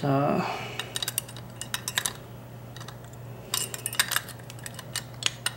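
Metal parts of a Kwikset doorknob clicking and clinking as they are handled and fitted back together by hand. The sharp, irregular clicks come in several quick clusters.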